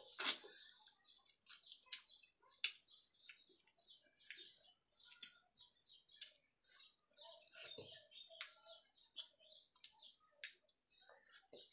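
Small birds chirping continuously in quick, high twitters. Scattered sharp clicks and smacks from hand-eating rice off a steel plate cut through, the loudest just after the start.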